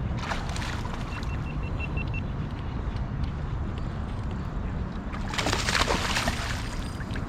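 Water sloshing and splashing around a kayak over a steady low rumble, with a louder splash of water about five seconds in. Between these, a run of about seven quick, even, high ticks.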